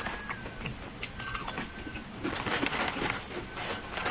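Crunching and chewing of crisp potato chips, in irregular crackly bursts with small clicks.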